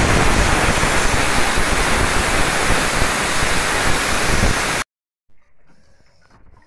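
Aluminium pressure cooker venting steam from its weight valve: a loud, steady hiss that shows the cooker is up to pressure. It cuts off abruptly about five seconds in.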